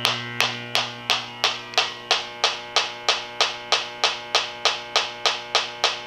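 H10 electronic refrigerant leak detector ticking evenly, about three ticks a second, over a steady hum, with its probe at the evaporator coil's suction-line opening. The tick rate stays steady rather than racing into alarm, so no leak is being picked up at this spot.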